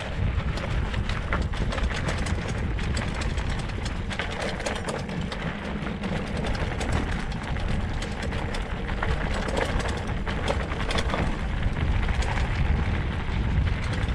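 Mountain bike riding down a rough, rutted dirt track: tyres rolling over loose dirt and stones, with steady clicking and rattling from the bike, under a low rumble of wind on the helmet-mounted microphone.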